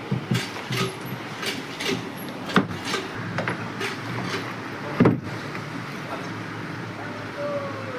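A series of irregular knocks and clicks, about a dozen, over a steady background hiss, with the loudest knock about five seconds in.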